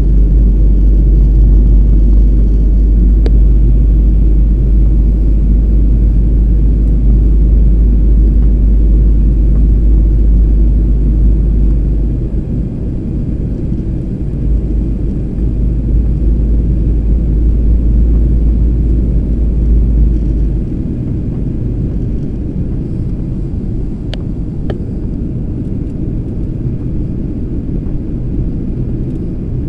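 Steady cabin rumble of a jet airliner in flight, engine and airflow noise heard from a window seat. A heavy deep drone under it dips for a couple of seconds about twelve seconds in and drops away about twenty seconds in, leaving a lighter rumble.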